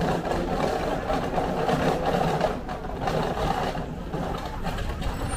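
Steady din of a busy street, with traffic noise in it.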